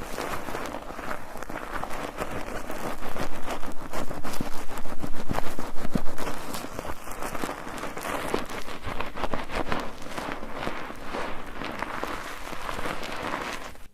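Bar soap being lathered in a foaming net: a wet squelching with dense crackling of suds, louder for a few seconds near the middle, and it stops abruptly at the end.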